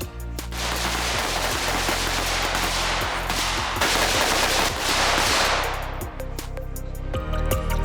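Rapid, overlapping AR-15 rifle fire that starts about half a second in and eases off after about six seconds, with background music underneath.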